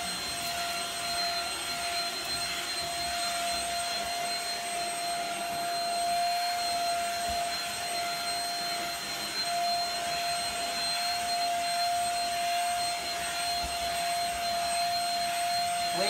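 Handheld cordless vacuum cleaner running steadily with a constant whine over its airflow hiss, its nozzle working the carpeted stair treads.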